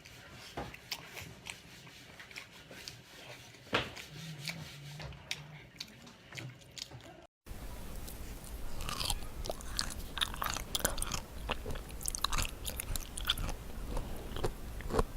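A person eating close to the microphone: chewing with mouth clicks and smacks, faint at first, then louder after a sudden break about seven seconds in.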